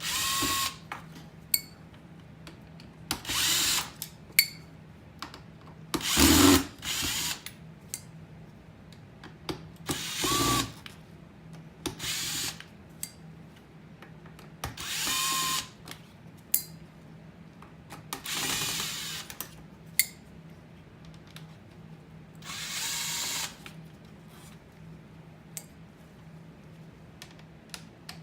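Cordless power screwdriver backing out the small Phillips screws of a car navigation unit's housing, in about eight short runs of half a second to a second, several ending as the motor winds down. A few sharp clicks fall between the runs.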